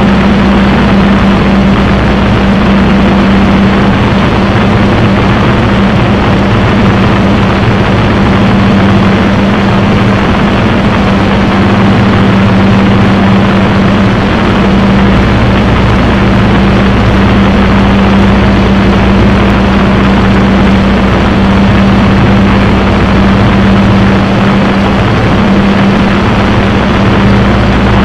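Spitfire's V12 piston engine running steadily in flight, heard from inside the cockpit: a loud, even drone with a strong low hum over a dense rushing noise.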